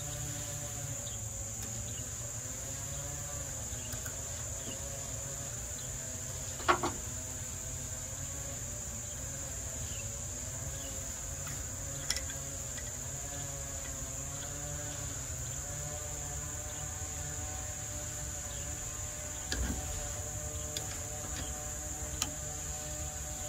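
Steady high-pitched insect drone over a low steady hum. A few brief, sharp metallic clicks from metal brake-line fittings being handled and threaded into a master cylinder: the loudest about seven seconds in, others about twelve, twenty and twenty-two seconds in.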